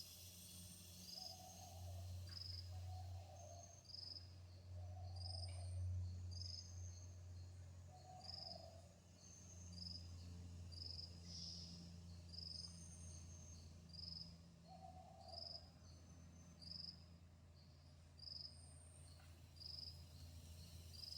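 Insects chirping, faintly: a short high chirp repeating evenly a little more than once a second, with a few other chirps scattered in, over a low steady hum.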